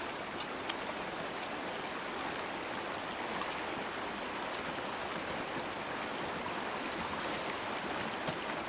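Franconia Brook's open water rushing steadily past shelves of snow-covered ice.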